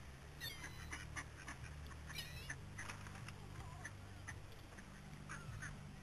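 Mallards quacking and gulls calling: several short calls spread through, over a steady low hum.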